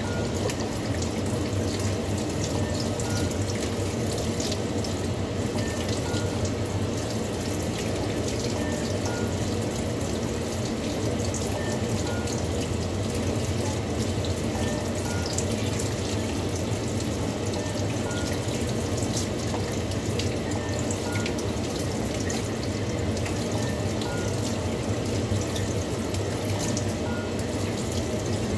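Kitchen tap running steadily, the stream splashing over raw chicken pieces as they are washed by hand under it.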